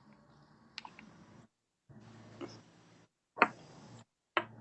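A few short, sharp clicks over a faint low hum, with the sound cutting out completely three times for a moment.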